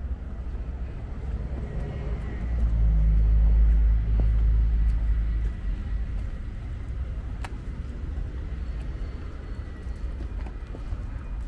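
Street traffic: a vehicle passes, its low rumble swelling about two and a half seconds in and fading by about five and a half seconds, over steady outdoor traffic noise. A single sharp click comes a little past the middle.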